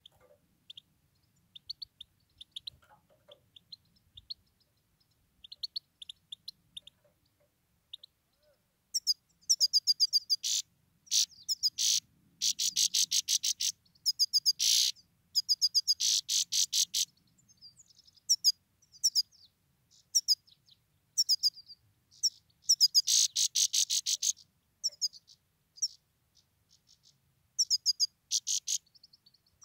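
Male grey-headed goldfinch calling. The first few seconds hold a scattering of thin, high chirps. From about nine seconds in come long, loud bursts of rapid twittering and trills, broken by short pauses. This is the goldfinch's calling song (pozovka), which keepers use to lure wild goldfinches.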